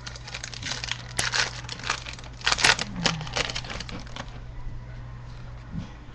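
Crinkling and crackling of a trading card pack wrapper and cards being handled: a quick run of crackles for about four seconds, then dying away to a few faint ticks.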